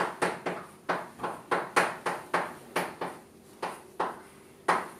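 Chalk writing on a green chalkboard: an irregular run of sharp chalk taps and strokes, about three a second, as symbols are written.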